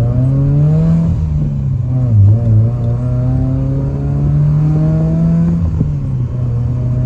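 Honda Accord engine accelerating under load: its note climbs, falls sharply about two seconds in as a gear changes, climbs again and falls at another shift near six seconds, then holds steady.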